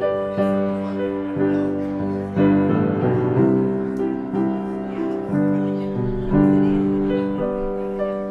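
Slow piano music: chords struck about once a second and held, ringing on.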